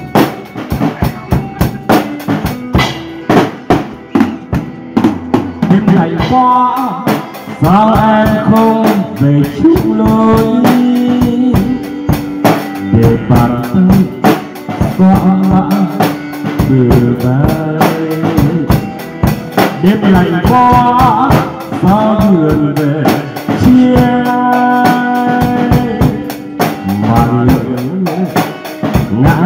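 Acoustic drum kit played with sticks in a steady, busy beat. From about six seconds in, a guitar melody plays over the drums.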